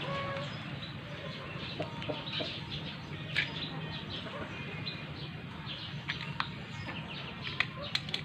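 Scattered short bird calls, chicken-like clucks, over a steady low background hum, with a few light clicks.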